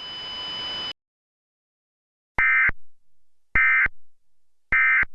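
Emergency Alert System end-of-message data tones: radio hiss cuts off about a second in, then three short, identical buzzy data bursts about a second apart, signalling the end of the alert.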